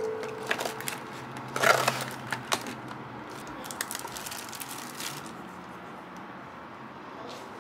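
Thin plastic bag and clear plastic packaging crinkling and crackling as a figure is worked out of it by hand, with a cluster of louder crackles about two seconds in, and the sound thinning out after about five seconds.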